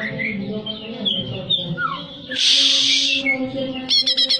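Cucak ijo (green leafbird) song: varied whistled, gliding notes, a loud harsh rasping note about halfway through, then a fast run of repeated high notes near the end. A steady low hum runs underneath.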